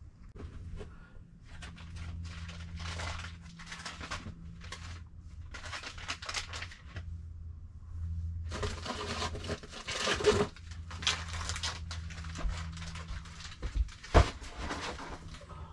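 Rustling and crinkling of bags and cardboard boxes being handled and shifted, in irregular bursts, with a sharp knock near the end. A low steady hum runs underneath.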